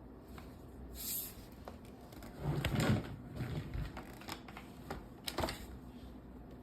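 Scattered clicks and knocks from handling the cordless stick vacuum, with a louder, duller knock about two and a half seconds in.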